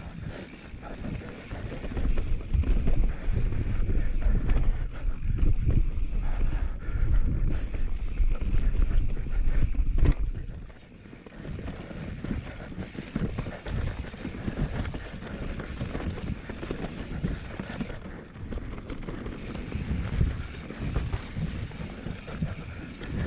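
Mountain bike descending a dirt trail: wind buffeting the microphone over tyre noise, with rattles and knocks from the bike over bumps. The wind rumble is heaviest in the first half and drops off about ten seconds in, leaving the tyre noise and rattling.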